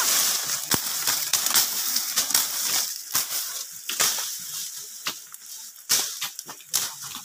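Grass and brush being hacked with a hand blade: irregular sharp cutting strikes, sometimes several a second, with the rustle and crunch of stalks. The strikes thin out toward the end.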